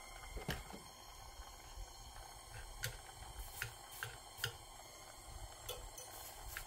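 A handful of sharp, light metal clicks at irregular intervals over a faint steady hiss. This is small metal-on-metal contact on a clip-clamped bit cheek while a gas torch flame plays on it during soft soldering.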